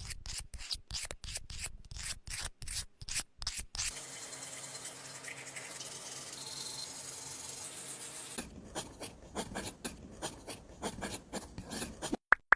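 Hand scraping and rubbing on a small rough surface, as in sanding or filing miniature brick work. It goes in quick separate strokes, then a steady rasp of about four seconds, then quick strokes again.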